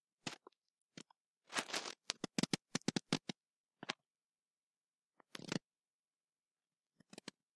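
Faint, scattered clicks and brief rustles from a computer mouse being clicked and handled on a desk, with a quick run of clicks about two to three seconds in and dead silence between.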